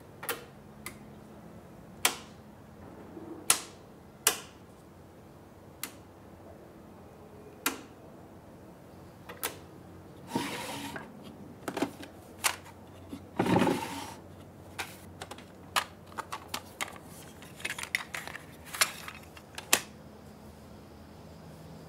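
Irregular sharp clicks and knocks, as of small hard objects being handled, scattered over a faint steady low hum, with two brief rustling swells about halfway through; the clicks come thicker near the end.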